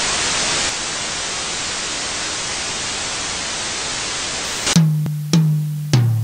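Steady hiss of television static that cuts off suddenly about three quarters of the way in. It is followed by three sharp musical hits, each with a low bass note that dies away, the last one pitched lower: the opening of a music jingle.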